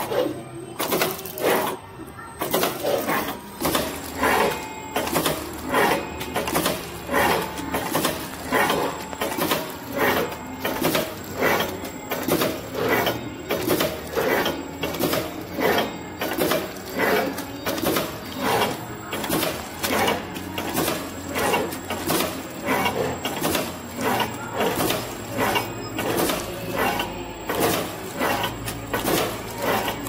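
Flow-wrap pillow packing machine running, clattering in a steady rhythm of about one and a half strokes a second as it wraps clay bars in clear film.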